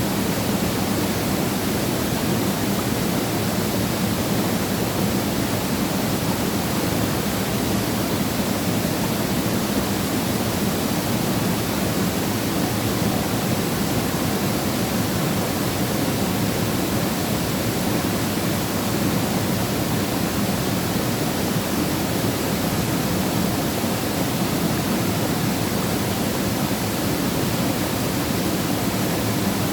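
Waterfall pouring steadily, a continuous even rush of falling water.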